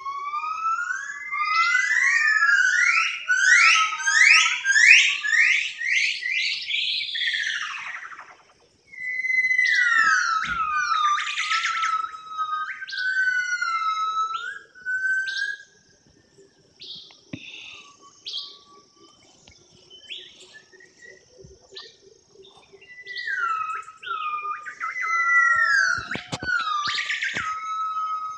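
Bird song: loud, clear whistled notes gliding up and down. A fast run of rising whistles comes first, then phrases of falling whistles. It goes quiet in the middle and the song resumes near the end.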